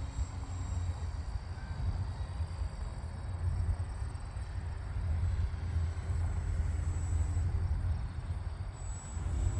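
Wind buffeting the microphone: an uneven low rumble, with no motor heard.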